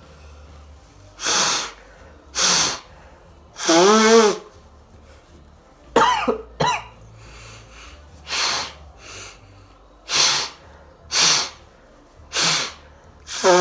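A man blowing his nose hard into tissues to clear a snot-clogged nose: about ten short, forceful blows roughly a second apart, two of them with a voiced groan.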